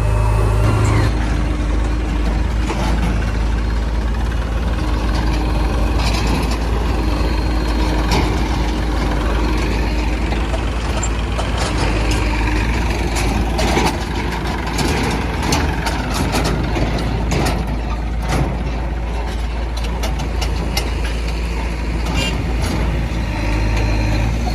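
Heavy diesel machinery running steadily: the engines of a JCB backhoe loader and the trucks and tractors it loads with mud, with many short knocks and clatter throughout.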